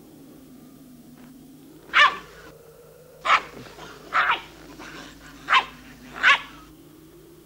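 Puppy barking: about six short, sharp barks spread over four seconds, one of them a quick double.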